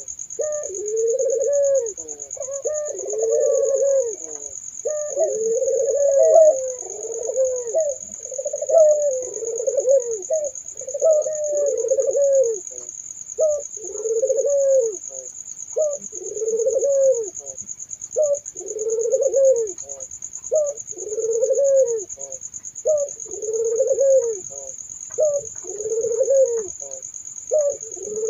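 Puter doves (Barbary doves) cooing over and over, a low rolling coo about every one and a half to two seconds, with two birds overlapping in the first part. A steady high-pitched whine runs underneath.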